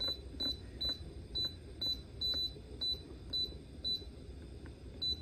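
Instant Pot control panel beeping as the pressure-cook time is stepped up toward 45 minutes: short high beeps about two a second, a pause near the end, then one last beep.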